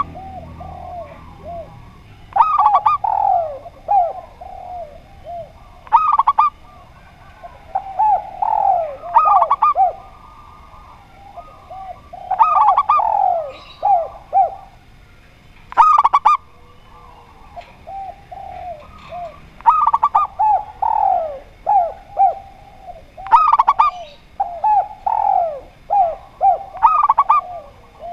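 A spotted dove and a zebra dove cooing, calling persistently. Phrases come every three to four seconds, each made of a few sharp, high clipped notes followed by falling coos.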